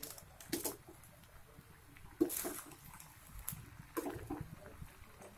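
Pasta being stirred in a nonstick frying pan with a cooking utensil: intermittent soft scrapes and wet squelches, the loudest a little over two seconds in.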